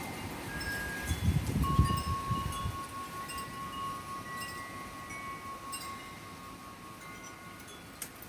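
Wind chimes ringing in the wind, several different tones struck at scattered moments and ringing on. A gust of wind rumbles on the microphone about a second in.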